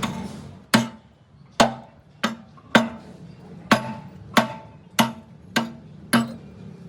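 Hammer blows on steel, about nine sharp strikes at an uneven pace, each ringing briefly.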